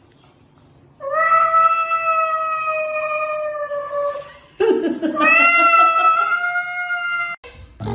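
A cat yowling in a confrontation with another cat, two long drawn-out calls. The first starts about a second in and lasts about three seconds, its pitch sagging slightly. The second starts with a low growl just before five seconds in, rises into a steady yowl and stops shortly before the end.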